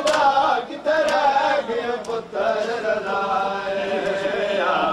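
Men's voices chanting a noha (Shia lament) in unison, with sharp, regularly spaced slaps of hands striking bare chests in matam.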